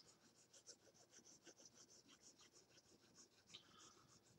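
Faint scratching of a 2B graphite pencil's blunt side shading across paper, in quick short strokes, several a second.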